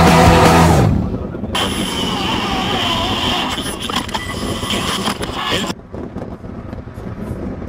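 Rock music fades out in the first second. Then an Alfa Romeo 147 is heard driving along a street, with engine and road noise, and a quieter stretch of wind noise near the end.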